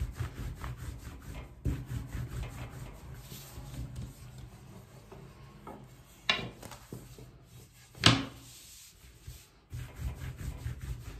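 Long thin wooden rolling pin (oklava) rolled quickly back and forth under the palms, with thin dough wrapped around it on a glass countertop: a fast rubbing and knocking rhythm. It pauses in the middle for two sharp knocks, the second the loudest, and the rolling starts again near the end.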